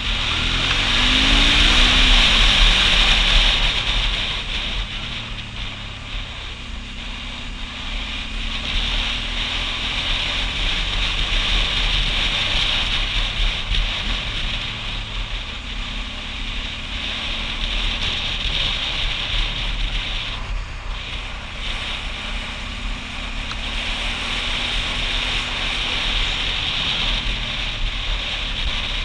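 Motorcycle engine running as the bike is ridden, heavy wind rush over the camera microphone throughout. In the first few seconds the engine note rises as it accelerates, and this is the loudest part.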